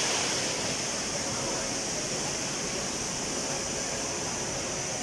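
Steady ambience of a busy railway station: a constant hiss with the hubbub of a crowd of commuters beneath it.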